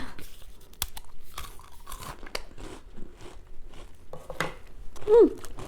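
Crunching and chewing a dry MRE cracker, with irregular crisp cracks as it breaks up. About five seconds in there is a short falling "mm" hum.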